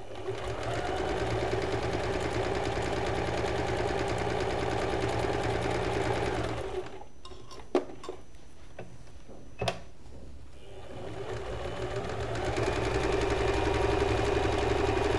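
Usha Janome Fashion Maker electronic sewing machine, run from a foot pedal, sewing a straight stitch through fabric. It stops for about three seconds midway, with two sharp clicks in the pause, then starts again and grows louder.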